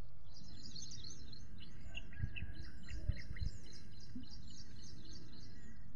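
Small birds chirping, a dense run of short quick calls that drop in pitch, over a steady low background noise, with a couple of soft low thumps about two and three seconds in.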